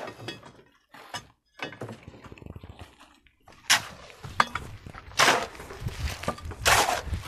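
Metal hoe blades chopping into and dragging through dry, gritty soil: scattered knocks, a sharp strike about four seconds in, then two longer scrapes in the second half.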